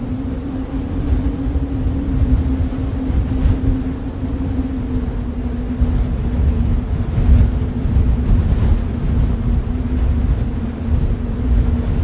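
Snowstorm wind ambience: a steady low rumble of wind with a constant low droning hum running through it.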